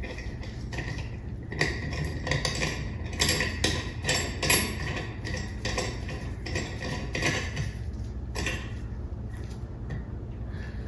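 Small metal parts clinking and scraping in irregular clicks as a chandelier's screw collar loop is threaded by hand onto the ceiling crossbar's nipple.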